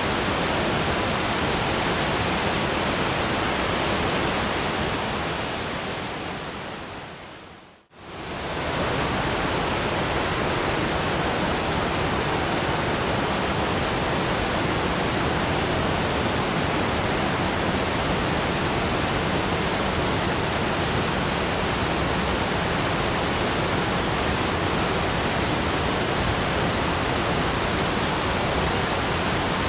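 Steady, even rushing noise of a waterfall brown-noise track. It fades gradually down to silence about eight seconds in, then swells quickly back to full level and runs on unchanged.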